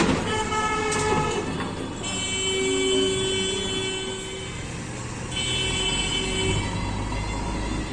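Heavy diesel machinery running with a steady low drone, under three long, steady horn-like tones, each lasting one to two and a half seconds.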